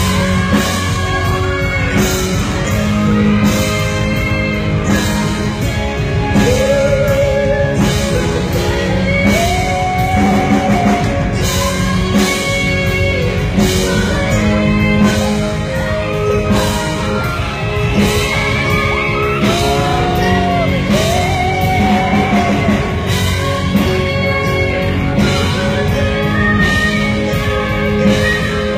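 Rock band playing live: a singer holding long notes with vibrato over a steady drum beat, bass and guitar.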